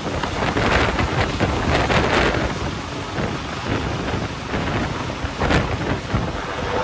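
Helicopter hovering low overhead: a loud rushing rotor noise with deep rumble, mixed with gusts of wind buffeting the microphone that swell and fade unevenly.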